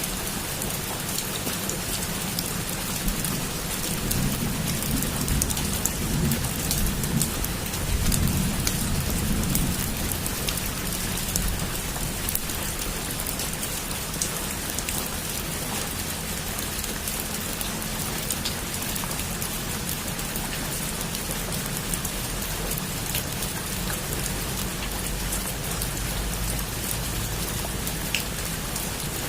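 Heavy rain falling steadily, a dense hiss with scattered sharper drop hits. A low rumble of thunder swells from about four seconds in and fades by about ten seconds.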